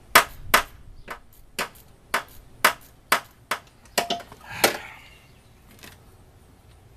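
Socket ratchet clicking as a bolt is tightened with short hand strokes: about ten sharp clicks, roughly two a second, stopping about five seconds in.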